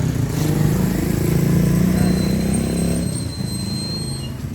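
A motorcycle engine passing close by on the street, growing louder to a peak about two seconds in and then fading. A thin high whine runs through its second half.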